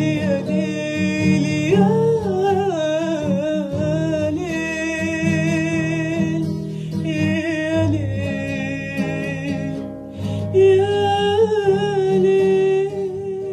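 A woman's voice singing a slow, wavering, ornamented melody line over a steady instrumental accompaniment.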